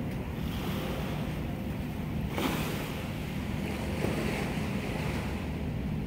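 Wind buffeting the microphone over the steady wash of the sea, a low rumbling noise with one stronger gust about two and a half seconds in.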